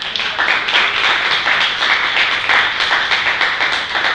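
Audience applauding: dense, loud clapping that breaks out suddenly and keeps going.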